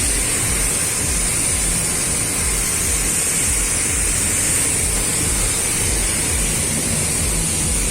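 Loud, steady industrial plant noise: a constant high hiss over a low rumble, with no breaks.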